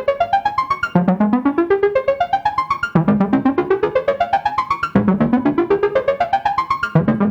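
Korg Volca Modular semi-modular synthesizer playing its preloaded sequence through an LFO modulation patch: a rapid stream of short notes whose pitch climbs steadily, drops back and climbs again about every two seconds.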